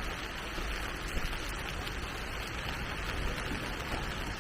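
Steady hiss of heavy rain in strong wind, with a low rumble underneath.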